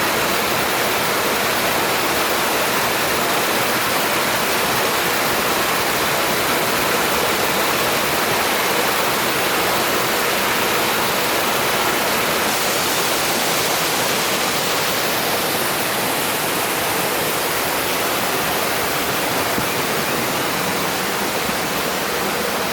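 Waterfall running in high flow: a loud, steady rush of falling water.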